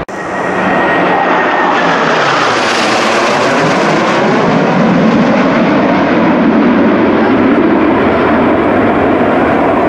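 Blue Angels F/A-18 Hornet jets flying over in formation: a loud, steady jet rush that builds in the first second, with tones sweeping up and down through it as the jets pass.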